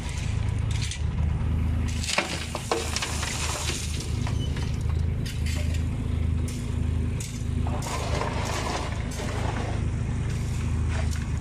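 A small diesel engine of the site machinery running steadily, with a few sharp clinks and crunches of stone or slag about two seconds in and some scraping near the end.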